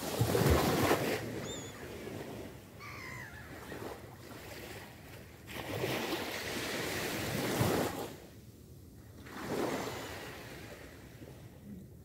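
Small sea waves breaking and washing up a sand beach in three surges, the first the loudest. Between the first two waves come a couple of short, thin gull cries.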